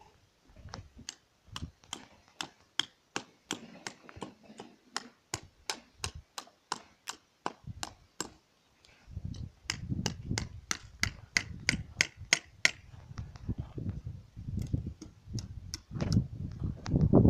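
Footsteps of a person walking on dry packed dirt: sharp clicking steps, about two a second. From about nine seconds in, a low rumbling noise on the microphone grows louder towards the end.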